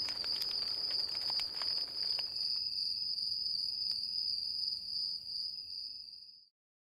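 Insects trilling in one steady high, unbroken note, with a second, lower trill joining a couple of seconds in. Sharp crackles and pops from a campfire, mostly in the first two seconds. It all fades out to silence near the end.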